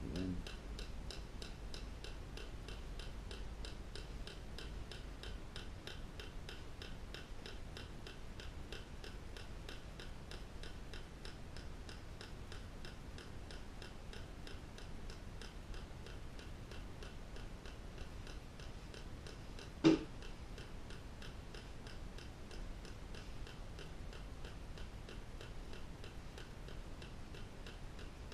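Steady fast ticking, about four ticks a second, over a low room hum, with one sharp, much louder click about twenty seconds in.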